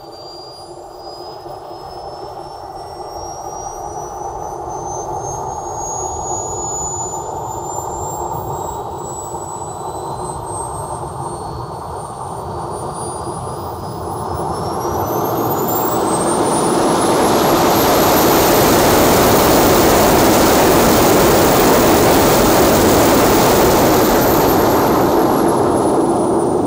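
RC model jet's small gas turbine engine running on the ground: a high whine that climbs slowly at first, then rises steeply about halfway through as the engine spools up to high power. It holds there, loud, with a strong rushing exhaust noise, and the whine eases down slightly near the end.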